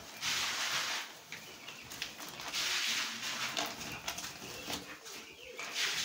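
Sawdust shaken out of a sack onto a plastic tarp floor, rustling and hissing in bursts a couple of seconds apart, with bird calls behind it.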